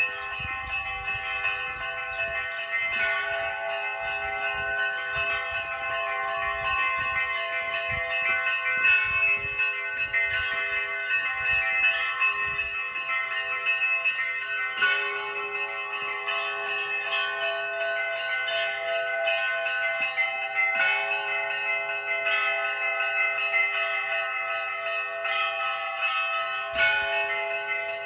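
Russian Orthodox monastery bells ringing: many bells of different pitches struck again and again, their tones overlapping into one continuous peal.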